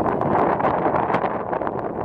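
Wind buffeting the microphone: a steady rushing noise with irregular small pops through it.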